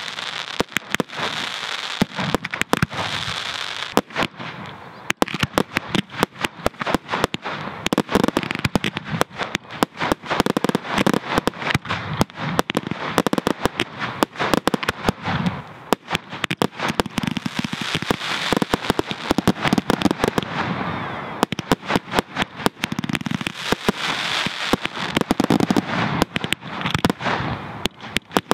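Fireworks display: aerial shells bursting in a dense barrage of sharp bangs and crackling, many reports in quick succession, with a couple of brief lulls.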